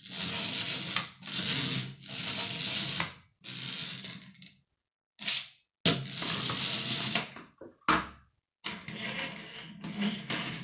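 Clockwork mechanism of a small wind-up toy train, sounding in a series of short spells of about a second each, with brief gaps between them where it cuts off sharply.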